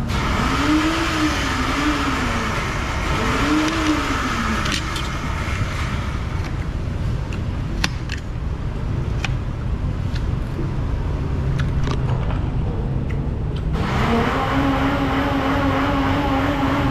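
Metal spoon clinking against a plate now and then over a continuous low rumble. In the first few seconds an engine-like sound rises and falls in pitch three times, and near the end a steady engine-like hum comes in.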